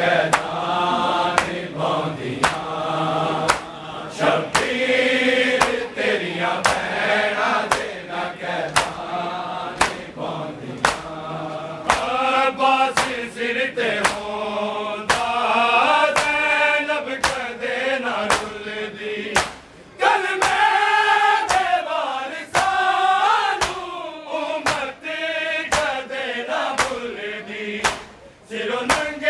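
Men chanting a noha in unison behind a lead reciter, with rhythmic matam: chest-beating slaps about one and a half times a second.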